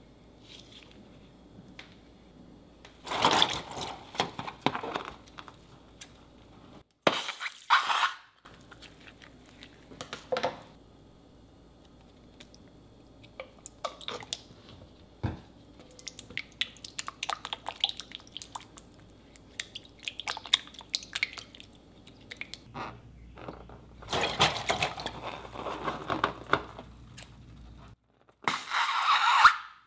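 Thick white glue squelching and dripping as it is squeezed out of a balloon into a glass bowl, then a clear liquid poured and dripping into the bowl. The sounds come in separate short bursts and crackly stretches, with a louder burst near the end.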